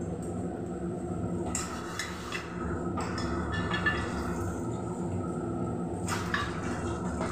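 Paniyaram cooking in a lidded aluminium pan on a gas burner: a steady low hum with a few faint metallic clinks.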